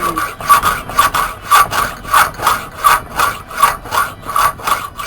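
Hand sawing back and forth on metal, about three strokes a second, cutting slots into the heads of a Honda Dio fuel pump's tamper-proof Torx screws so that a flat screwdriver can turn them.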